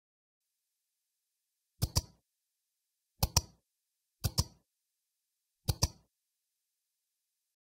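Computer mouse-click sound effect: four double clicks, one to one and a half seconds apart, from the animated subscribe-button overlay.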